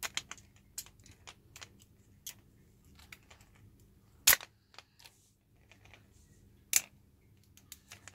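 Hard plastic toy packaging being handled and pried open: scattered small clicks and snaps, with two much louder snaps about four and seven seconds in.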